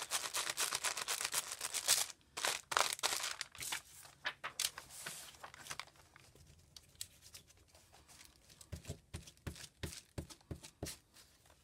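Crumpled lined notebook paper crinkling and rustling as a glue stick is rubbed back and forth over it in quick dense strokes, then sparser rustles and taps as the crinkled pages are pressed and handled.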